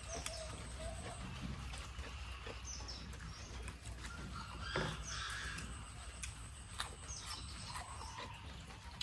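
Birds chirping now and then over a quiet outdoor background, with small clicks and crunches of people eating raw vegetables; one louder crunch or click about five seconds in.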